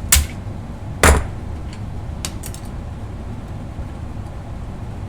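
Sharp snaps and clicks of a hand tool prying spot-welded tabs loose on a battery pack. A loud snap comes right at the start and a louder, ringing one about a second in, followed by a few lighter clicks over a steady low hum.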